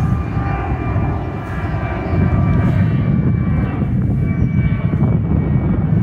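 Jet airliner passing low overhead: a loud, steady engine rumble with a whining tone on top.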